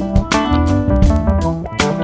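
Background music: an instrumental track with guitar and a steady beat.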